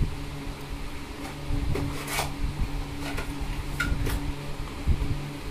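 Cardboard box being handled and opened by hand, with soft thumps and a few sharp scrapes of the flaps and inner cardboard, over the steady hum of an electric pedestal fan.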